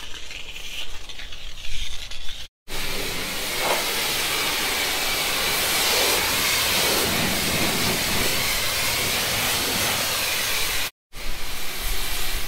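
A pressure-washer lance sprays water onto a van's bodywork with a steady hiss. The hiss comes in abruptly about two and a half seconds in and cuts off just as abruptly near the end.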